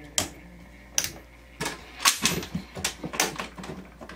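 A string of sharp clicks and knocks, about a dozen, irregularly spaced, as a switch on a lure turner's control box is pressed and the chamber's curved plastic cover is shut over it.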